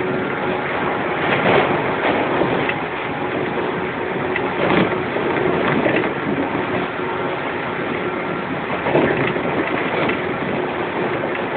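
Running noise of a JR 115 series electric train, heard from inside the motor car: a steady wheel-on-rail rumble with a steady motor and gear hum at an even speed, and louder clatters now and then.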